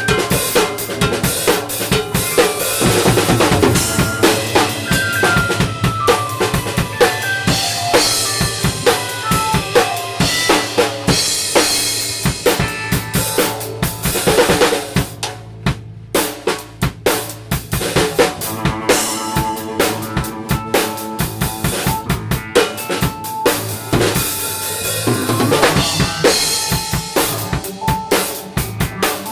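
Live instrumental band: drum kit played hard with busy kick and snare, under keyboard and electric guitar. Stepwise descending runs of notes sound over the first few seconds, and there is a brief break about halfway through.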